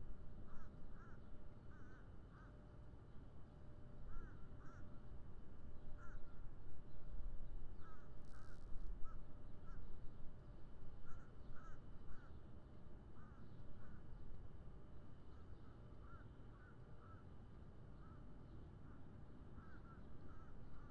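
Crows cawing over and over in short calls, often paired or in quick runs, over a low rumbling background. A brief hiss comes about eight seconds in.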